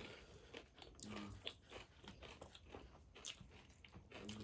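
Faint close-miked chewing and biting of pork feet: irregular wet clicks and crunches.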